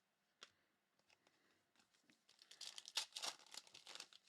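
Faint crinkling and rustling of plastic as trading cards are handled, lasting about two seconds in the second half. A single light click comes about half a second in.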